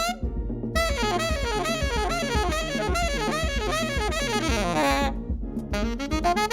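Jazz music led by a saxophone playing quick runs up and down, over a steady bass line. The saxophone drops out briefly twice, just after the start and about five seconds in.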